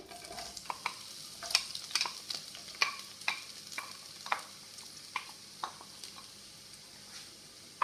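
Sliced onions dropped into hot cooking oil in a nonstick pan, sizzling with a steady hiss and scattered sharp pops and clicks that thin out toward the end.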